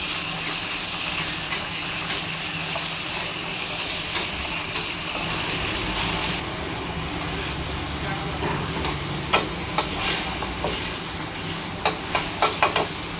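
Hot oil sizzling steadily in a wok as deep-fried battered chicken pieces are lifted out with a metal strainer ladle. About six seconds in the sizzle drops away, and near the end a metal ladle clinks and scrapes against a wok several times while stirring the chicken in curry sauce.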